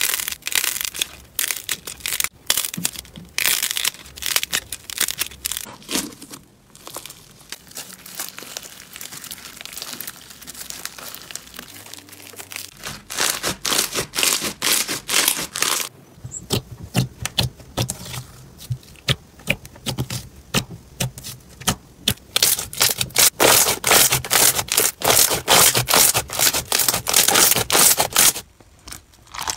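Hands squeezing and pressing slime, making dense runs of crackling, popping clicks. The crackling is thickest about halfway through and again over the last few seconds.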